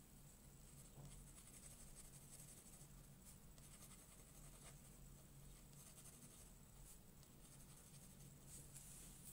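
Faint scratching of a pen on watercolour paper, drawn in quick repeated hatching strokes, over a low steady hum.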